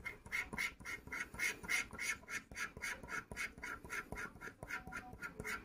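A coin scratching the coating off a scratch-off lottery card in quick, even strokes, about four or five a second.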